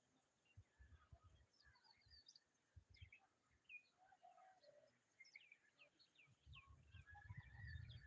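Faint bird chirps: many short, high notes, several sliding downward, scattered through, over near silence. Low rumbling bumps come in toward the end.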